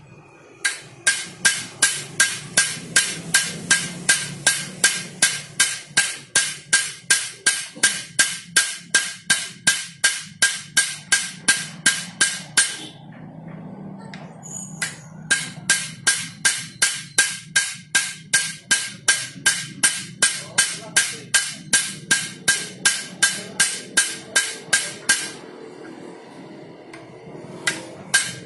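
Hammer striking metal in quick, even blows, about four a second, each with a short metallic ring. This is rivets being peened by hand on a motorcycle clutch housing. The run of blows stops briefly about halfway through, then resumes, pauses again and starts once more near the end.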